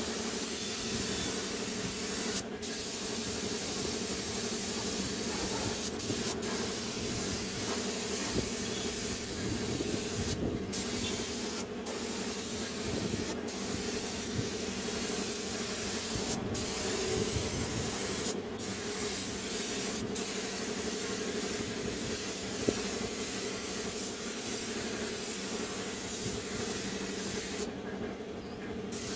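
Compressed-air paint spray gun hissing steadily, the hiss dropping out for a moment about eight times and for about a second near the end. A steady hum runs underneath.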